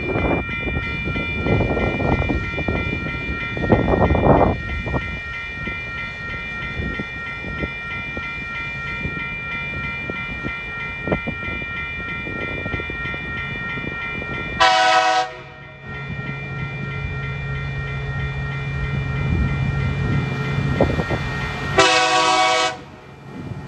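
Level crossing warning bell ringing steadily while a TasRail diesel locomotive approaches hauling a loaded freight train. The locomotive sounds two short horn blasts, one about fifteen seconds in and one near the end, and its diesel engine runs louder as it draws near between them.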